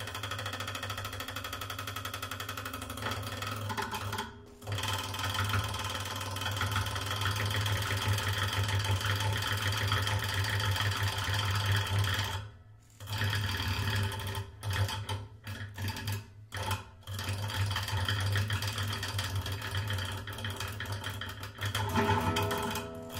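Acoustic guitar lying flat with its strings mechanically agitated, giving a dense buzzing drone with sustained string tones. The sound cuts out briefly about four seconds in and again around thirteen seconds, then turns choppy with several short breaks before running on steadily.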